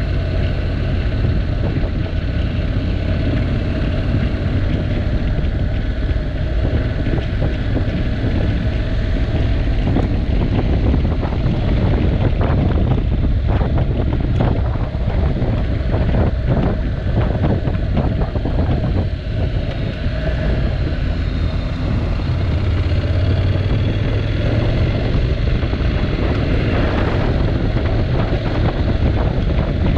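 Honda NC750X parallel-twin engine running steadily while cruising at around 40 to 50 km/h, mixed with heavy wind noise on the microphone that turns gustier through the middle.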